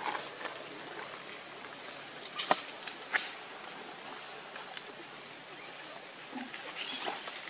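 Outdoor forest ambience: a steady high-pitched insect drone, with a few sharp clicks and rustles in dry leaf litter about two and a half and three seconds in, and a brief high squeak near the end.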